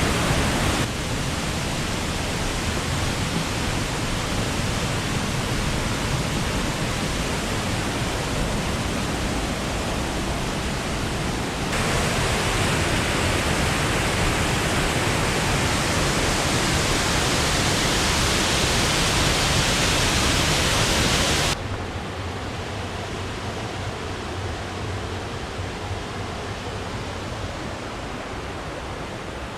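Waterfall rushing: a steady, dense hiss of falling water. It steps louder and brighter about twelve seconds in, then drops suddenly quieter and duller about two-thirds of the way through.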